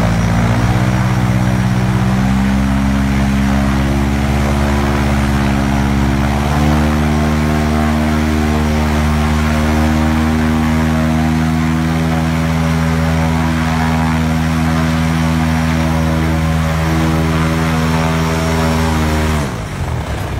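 Eos 150cc two-stroke paramotor engine and propeller on a ground run, still warming up, held at high power. Its pitch steps up a couple of times in the first few seconds, then holds steady until the revs drop sharply near the end as it is throttled back.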